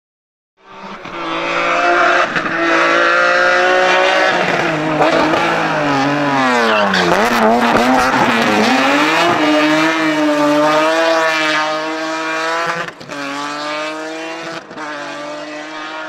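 Rally car engine at high revs. The pitch drops as it slows for a corner around the middle, then climbs back and holds high again, with a few sharp cracks along the way.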